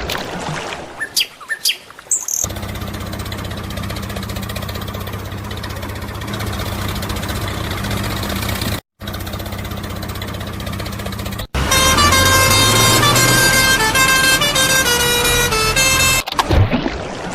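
Tractor-style engine running steadily, cutting out briefly partway through, then a loud musical vehicle horn playing a tune of changing notes for about five seconds.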